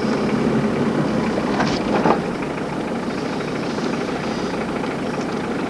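Safari vehicle's engine running steadily at idle, with two short clicks about two seconds in.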